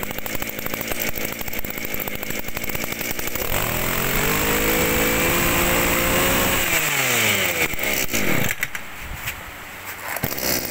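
Kioritz 26cc two-stroke brush cutter engine idling, then revved up about three and a half seconds in, held high for a few seconds and let drop back to idle, with one more short blip of the throttle near the end.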